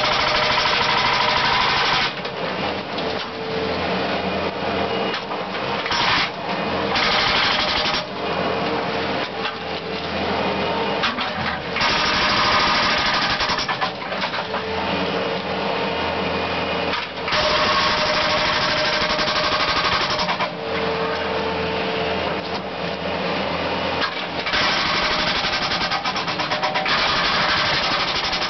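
Jackhammer breaking up concrete, hammering in bursts of a few seconds each, five times, with a machine running more quietly between the bursts.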